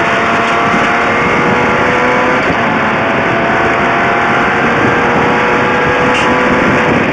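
BMW E30 M3's four-cylinder rally engine running at steady high revs, heard from inside the cabin, with a quick upshift into sixth gear about two and a half seconds in.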